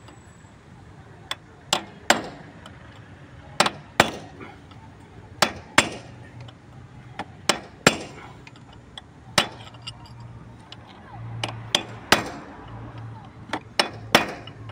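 Hammer blows on a steel chisel set into the cylinder head of a Renault Clio 3 1.5 dCi diesel, giving sharp metallic clinks. About a dozen strikes come at irregular intervals, often two in quick succession, as a stuck part in the head is knocked loose.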